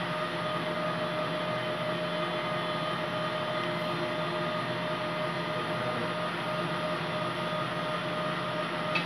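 Steady whirring drone of commercial kitchen ventilation, with a held mid-pitched hum running through it. A short light click near the end.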